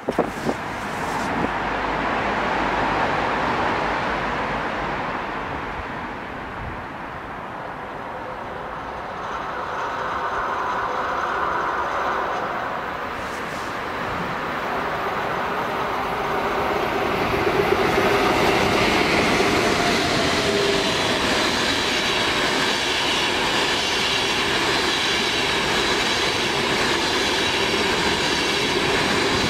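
ÖBB Railjet passenger train behind an electric locomotive running through a station. The rolling noise of wheels on rails swells from about nine seconds in and stays loud from about eighteen seconds as the coaches pass, with a steady high whine over it.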